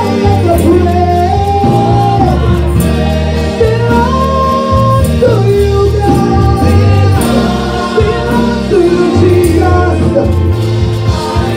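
Gospel praise-and-worship song: voices singing a held, sliding melody over instrumental accompaniment with a steady bass line and regular percussion strikes.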